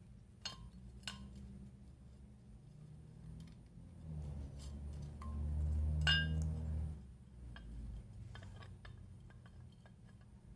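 Metal fan parts being handled on a work surface: two light clinks, a low handling rumble, then a sharper metallic clink that rings briefly about six seconds in, followed by a few faint clicks.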